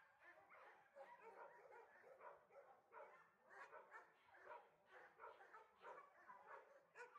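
Dogs barking faintly, many short barks in quick, irregular succession.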